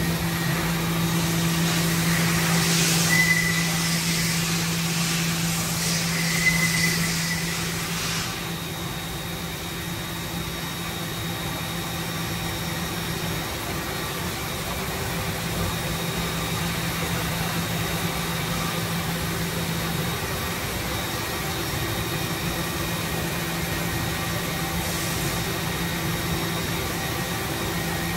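Doosan NHP 5000 horizontal machining center running, a steady machine hum with a low motor tone. A hiss with two short whistles runs through the first eight seconds, and the low tone drops out about twenty seconds in, returning near the end.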